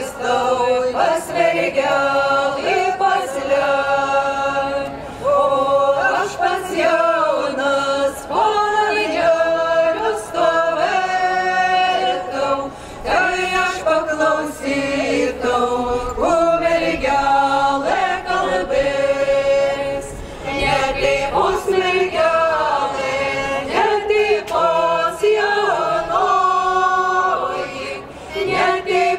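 A folk singing group singing together unaccompanied, in phrases of long held notes with short breaks between them.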